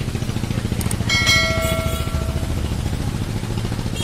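A bright bell chime, the ring of a YouTube subscribe-button animation, sounds about a second in after a faint click and fades out over about a second and a half. Under it runs a steady low engine drone.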